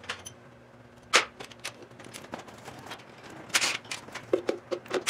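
Hand tools on the oil pan bolts of a Detroit Diesel 3-53 engine: a sharp metal clank about a second in, then a ratchet wrench clicking in quick strokes near the end as the pan bolts are loosened.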